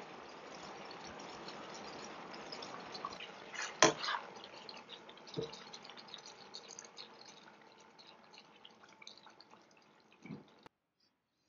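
Kung pao chicken sizzling and bubbling in a hot wok, the crackle slowly fading, with a few clacks of a wooden utensil against the wok, the loudest about four seconds in. The sound cuts off suddenly near the end.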